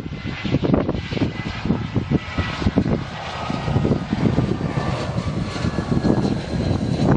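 Jet engines of a British Airways twin-engine airliner whining steadily as it passes low on final approach to land. Gusty wind buffets the microphone underneath.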